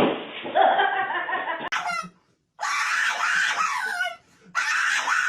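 High-pitched shrieking cries that bend up and down in pitch, in bursts with two short breaks, about two and four seconds in.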